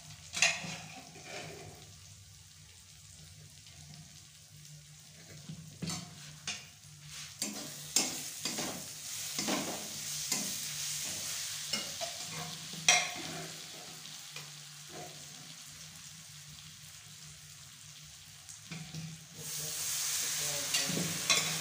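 A metal ladle stirs and scrapes onion masala frying in a kadhai, with sharp clinks of metal on the pan. Near the end a ladleful of boiled spinach goes into the hot pan, which starts a loud, steady sizzle.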